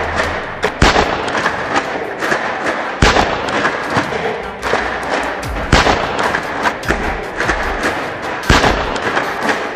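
Background music track with several loud thuds like gunfire or booms at irregular intervals over a dense, continuous backing.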